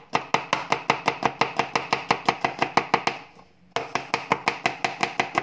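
Chef's knife rapidly chopping garlic on a plastic cutting board: sharp, even knocks about seven a second. They stop for about half a second a little past three seconds in, then start again at the same pace.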